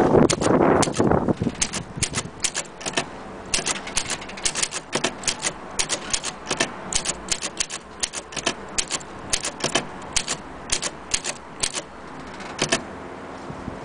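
Olympia SM3 Deluxe manual typewriter being typed on: sharp, irregular key strikes at about two to three a second, after a brief handling noise at the start.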